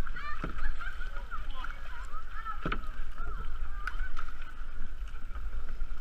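Kayak paddling: the paddle dipping and a few sharp knocks of the paddle against the plastic hull, over a steady low rumble of wind on the bow-mounted camera.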